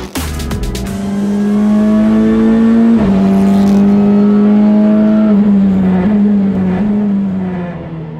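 Honda Civic Type R TCR race car's turbocharged four-cylinder engine running hard at high revs. The loud, steady engine note steps down in pitch a few times and fades near the end.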